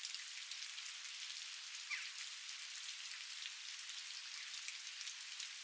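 Steady outdoor rain: an even hiss dotted with many small drop ticks. About two seconds in, a brief sound falls in pitch.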